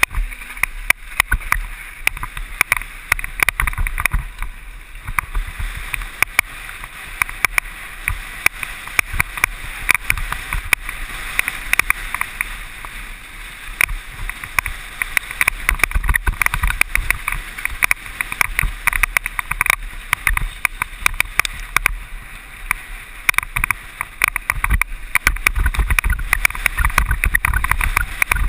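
Mountain bike rattling and clattering at speed down a rough downhill trail, a dense run of clicks with thumps from the bumps throughout.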